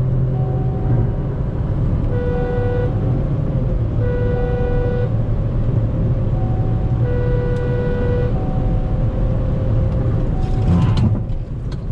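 MG Astor 1.3-litre turbo petrol car driving at high speed, with a steady engine and road rumble. Horn-like beeps sound over it several times, a few of them longer, and there is a short rush of noise near the end.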